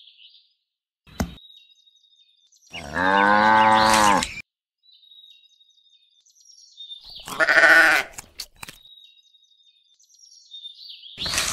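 Sheep bleating twice, a longer bleat about three seconds in and a shorter, higher one near eight seconds, with faint bird chirps between them. A brief sharp sound comes near the end.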